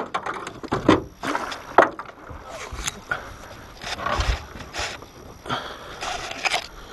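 Irregular knocks, clatters and scrapes of fishing gear being handled in an aluminium boat: a rod, reel and landing net bumping the hull and deck, with a few heavier thuds about four seconds in.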